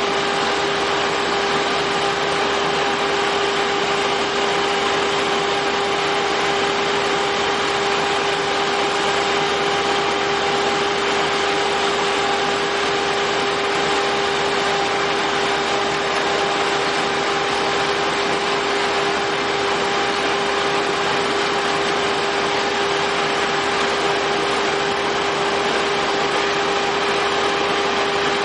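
Crawler drill rig's power unit running steadily: a constant mechanical drone with an unwavering pitched hum over a hiss, with no change in speed or load.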